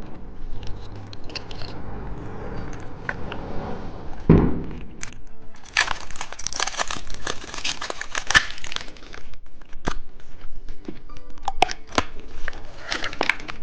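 Plastic candy wrapper being crinkled and torn open, with a run of sharp crackles and rustles that is densest a few seconds in.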